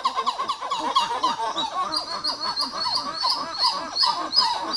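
Dusky titi monkeys calling in a fast run of repeated, arching notes that overlap one another, several a second. Higher, sharper notes join in about two seconds in.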